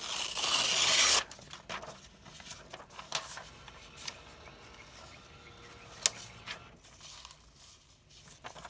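Sheets of old dictionary paper rustling and sliding against each other as they are handled. The first second or so is loud, then quieter rubbing and crinkling follow, with a single sharp tap about six seconds in.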